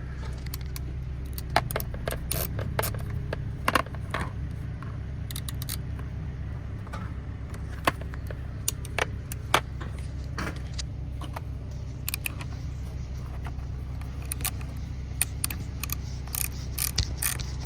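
Irregular metallic clinks and clicks of a ratchet, socket and extension being worked on a small bolt behind a steering wheel, over a steady low hum.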